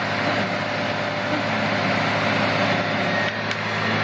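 Steady, loud running of a heavy machine's engine, with a brief click about three and a half seconds in.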